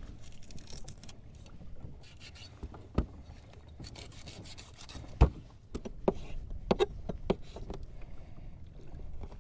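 Knocks, clicks and rubbing of fishing gear being handled on a kayak, over a low rumble of wind and water; a sharp knock about three seconds in, a louder one about five seconds in, and a run of lighter clicks a second later.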